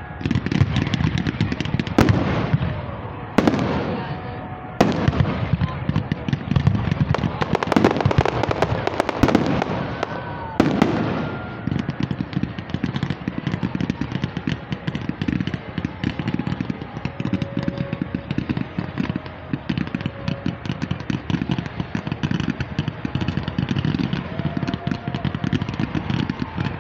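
Fireworks display: a series of sharp aerial shell bangs, each trailing off in a rumbling echo, for the first ten seconds or so. After that comes a steady, dense crackling of many rapid pops that runs on as a low barrage of white spark fountains fires.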